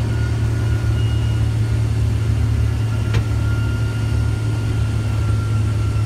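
Case IH combine running under load while harvesting soybeans, heard inside the cab: a steady low drone with a faint high whine, and a single faint click about three seconds in.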